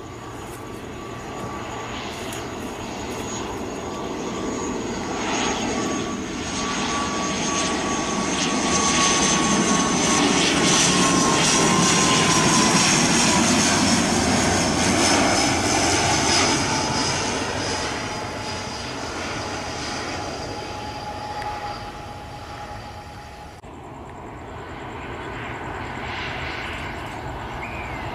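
ATR 72-600's twin PW127M turboprop engines and propellers passing close on landing approach. The sound swells to its loudest about halfway through, with high whining tones that slowly drop in pitch as the aircraft goes by, then fades. Near the end, after a sudden cut, a Boeing 737-800's jet engines on approach grow louder.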